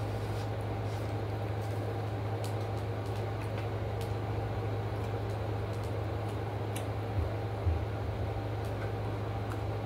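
A steady low mechanical hum from a running household appliance, with faint scattered clicks of food being handled and eaten. Two soft low thumps come about seven seconds in.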